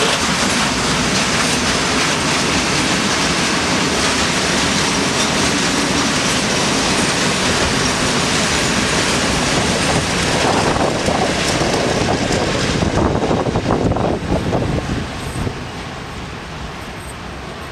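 Rake of Eaos open-top freight wagons rolling past, with steady wheel and wagon rattle and some wheel squeal. The rattle grows rougher and louder about ten seconds in, then fades from about fourteen seconds as the last wagons pass and move away.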